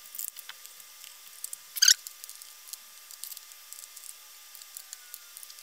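Faint small clicks, ticks and taps of inline skate wheels and axle bolts being fitted into an NN Dragon 80x skate frame and tightened with a small hand tool, with one louder brief scrape about two seconds in.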